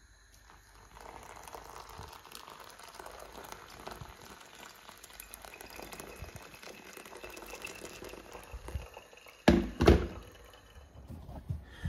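Hot water poured from a kettle onto ground coffee in a paper-filtered pour-over cone, a steady trickling splash of liquid. Two loud knocks near the end.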